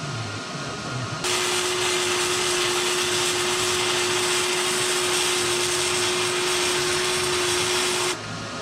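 Wire-feed (MIG) welding arc burning steadily for about seven seconds as a weld is run on the dozer blade: an even, loud hiss with a constant tone. It starts abruptly about a second in and cuts off suddenly near the end.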